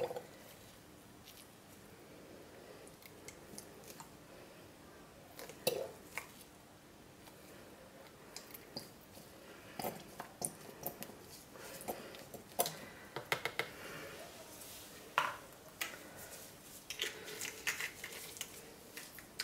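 Light, scattered clicks and clinks from handling a brown glass fragrance-oil bottle and its pipette over a plastic jug of soap batter, with soft room tone in between.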